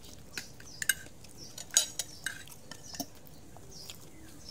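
A spoon clinking against dishes at a table: several sharp, irregular clinks and taps, the loudest a little under two seconds in.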